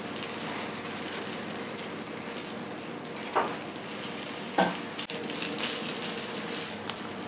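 Okonomiyaki batter and cabbage sizzling steadily on a hot iron teppan griddle, with two short clicks about three and a half and four and a half seconds in.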